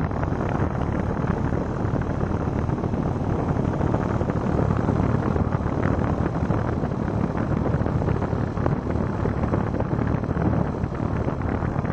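Midea air conditioner running with a steady noise that has no clear tone, mostly low and mid pitched, loud enough to be held up as a warning that the unit is noisy.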